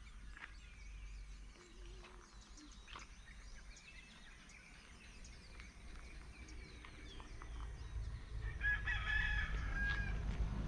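A rooster crows once, about nine seconds in, over scattered faint chirps of birdsong. A low vehicle rumble builds near the end.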